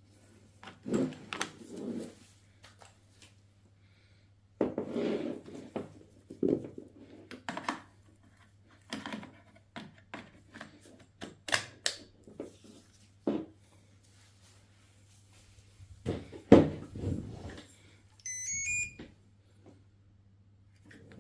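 Handling noise of a cordless pole chainsaw's parts being unpacked and fitted: scattered knocks, clicks and rustling, with a low steady hum underneath. About 18 seconds in, a short electronic beep tune steps upward in pitch.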